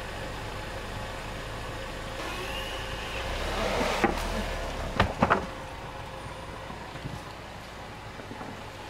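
A motor vehicle's engine runs steadily, swelling for a second or so about three to four seconds in. A few sharp knocks come around four and five seconds in.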